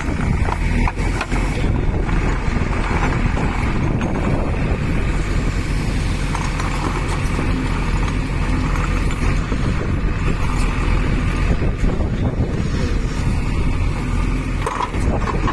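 Diesel engine of a JCB 3DX backhoe loader running steadily while it works.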